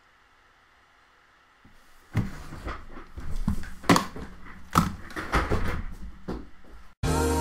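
About two seconds of near silence, then irregular knocks and thumps in a small room as a person gets up and moves about.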